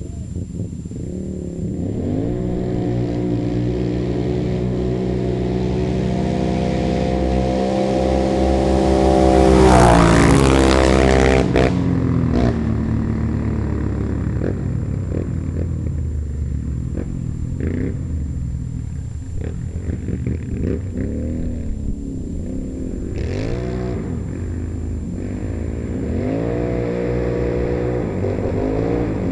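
Two ATV engines, a Can-Am Renegade 800X and a Polaris Predator 500, racing: revving hard and shifting up again and again, loudest about ten seconds in as the quads pass close, then carrying on revving at a distance.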